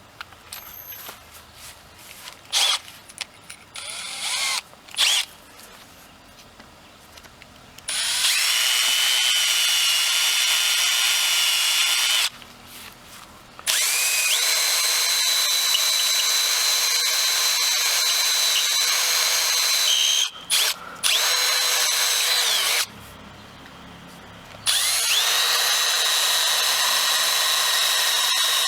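Power drill boring bolt holes to mount a hydrofoil fin on an outboard's lower unit. After several seconds of knocks and handling clicks, the drill runs three times with a steady high whine, spinning up in pitch at the start of each run. The first run starts about eight seconds in.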